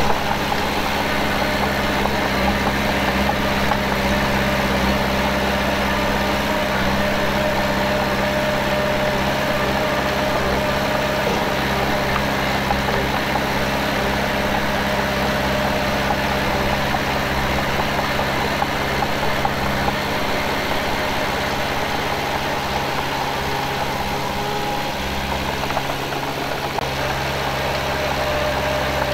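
Heavy diesel earthmoving engine running steadily, with a slight dip in the low rumble about three-quarters of the way through.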